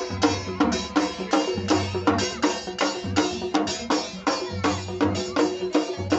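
Wedding dance music led by two-headed barrel drums beaten in a fast, steady rhythm of about four or five strokes a second, over a deep bass line.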